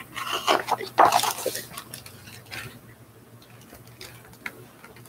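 A picture book's page being turned and the book handled, paper rustling and brushing for about the first second and a half. After that only faint room sound with a few small taps.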